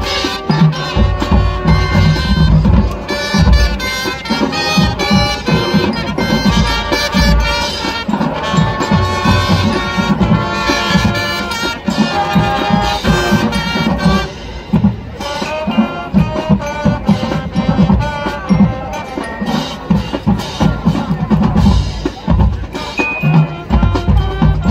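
Marching band playing: brass horns, including sousaphones and trumpets, over a drumline pounding out a steady beat on marching bass drums.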